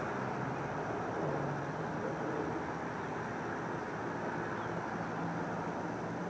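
Steady distant urban background rumble with a faint low hum, with no single event standing out.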